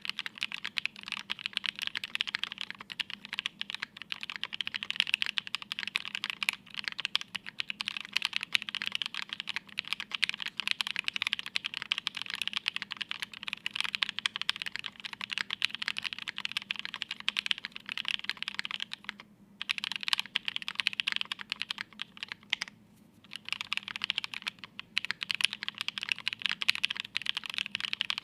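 Continuous fast typing on a plateless, foamless Nue mechanical keyboard with Krytox-lubed, filmed Creamsicle switches (tangie housings, cream stems) and GMK keycaps: a dense stream of keystroke clacks, broken by two brief pauses about two-thirds of the way through.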